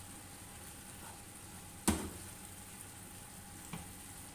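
Chicken filling in milk sizzling and bubbling gently in a frying pan, with a sharp knock about two seconds in and a lighter one near the end as the spatula strikes the pan.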